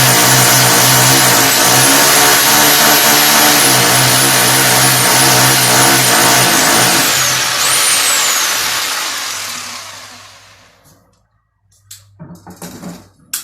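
A power drill's motor running loudly and steadily with a wavering high whine, fading away about ten seconds in; a few soft knocks and a click near the end.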